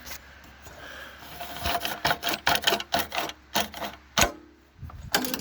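Irregular clicking and rattling from an old gas lawnmower's recoil starter as its loose pull cord is worked and wound back by hand. There is a sharp knock about four seconds in. The engine does not start.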